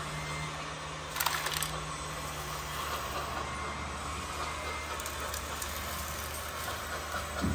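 Radio-controlled model construction machines running, a steady low hum with a hiss over it. A short burst of clicks and rattles comes about a second in, and a knock near the end.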